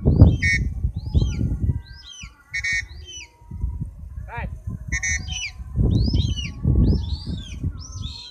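Small birds chirping: many short, quick downward chirps, with three louder buzzy calls about two seconds apart. A low rumbling noise comes and goes beneath them, loudest in the first two seconds and again about six seconds in.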